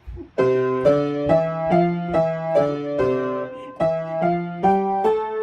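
Piano playing an even run of notes over a bass, about two to three notes a second, starting about half a second in.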